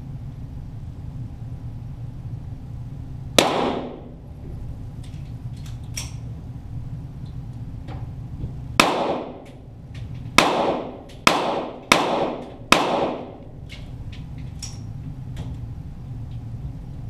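.22 Walther GSP target pistol shots, six in all: one about three seconds in, then five in quick succession over about four seconds starting near the middle, each trailing off in an echo. Fainter sharp ticks fall between the shots over a steady low hum.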